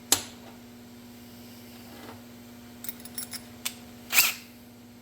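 Small metal parts and tools handled on a workbench: a sharp click at the start, a few light ticks around three seconds in, then a short scrape about four seconds in, over a steady low hum.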